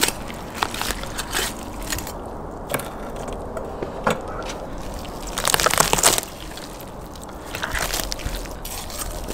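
Whole tandoor-roasted lamb being pulled apart by hand on a wooden board: crisp skin crackling and meat and bones tearing and snapping, with a dense crackling burst a little past the middle.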